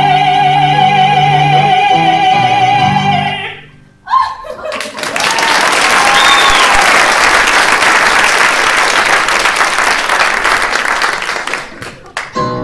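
A soprano and a man hold the final note of an operetta duet together, her high note wavering with vibrato, and cut off about three and a half seconds in. The audience then applauds with a few whoops for about eight seconds, the applause fading near the end.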